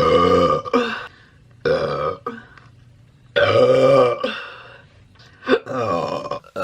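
A woman burping loudly, about six burps in quick succession, some long and drawn out and some short.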